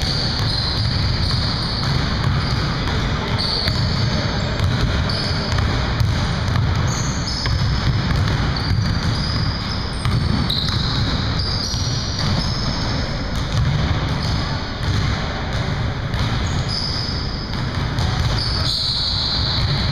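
Basketball game on a hardwood gym floor: balls bouncing, footsteps running and short high sneaker squeaks, echoing in a large gym hall.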